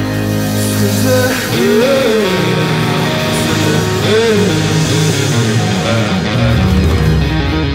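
Music: a rock song with guitar and a singing voice, the voice sliding between held notes.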